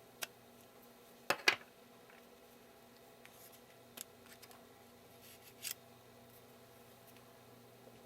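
A few sparse, sharp little clicks and light scrapes of small hard parts and a tool as an iPhone 3GS's SIM tray is pushed out with an eject tool. The loudest is a quick double click about a second and a half in.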